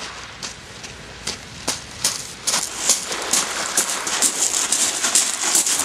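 Footsteps crunching on a pebble beach: a few separate crunches at first, then about two seconds in a quick, dense run of crunching steps.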